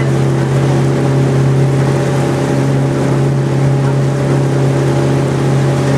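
Boat engine running steadily under way: a constant low hum with a rush of water and wind noise over it.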